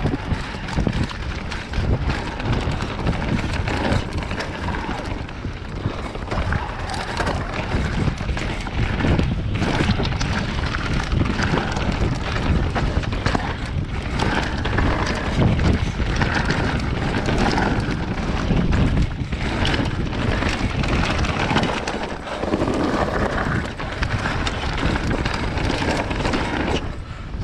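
Wind buffeting an action camera's microphone over the rumble of knobbly tyres on rough dirt and rock and the steady clatter and knocks of a Commencal Meta Power 29 e-mountain bike riding fast down forest singletrack.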